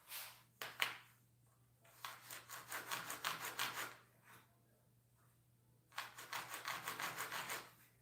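Quick back-and-forth rubbing strokes on wood in two bouts of about two seconds each, several strokes a second, over a faint steady low hum.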